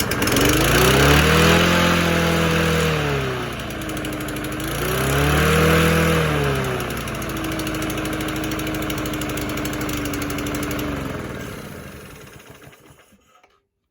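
Non-branded four-stroke petrol lawn mower engine running after starting first time: it revs up and drops back twice, then runs steadily at a lower speed before being shut off and running down to a stop near the end.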